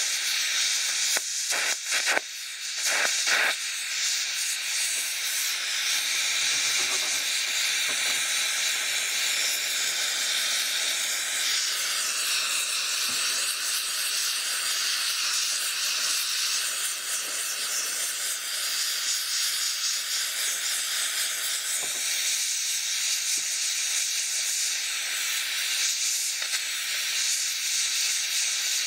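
Oxygen and MAP gas torch flame hissing steadily into a crucible as it melts sterling silver scrap, with a few short pops in the first few seconds.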